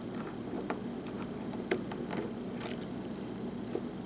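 Steel hook pick and pry-bar tension wrench working in a Lockwood oval pin-tumbler cylinder: light, irregular metal clicks and ticks as the pick probes the pins, a few close together near the middle.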